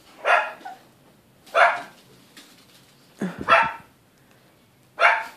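Small dog, a Chihuahua, barking in short single barks about every second and a half, begging at ham held out of its reach.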